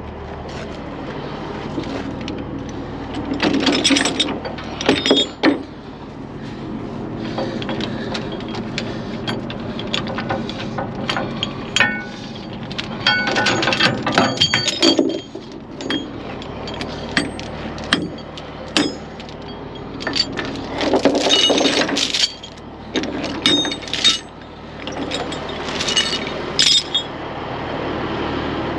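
Steel tie-down chains being handled, rattling and clanking against the steel trailer rail and frame in repeated bursts.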